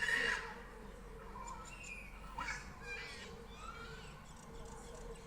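Birds chirping in short, scattered calls that bend up and down in pitch. The loudest is a brief call right at the start.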